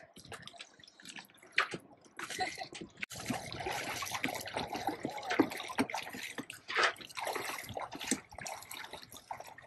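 Water splashing and sloshing in small, irregular splashes, busier after about three seconds.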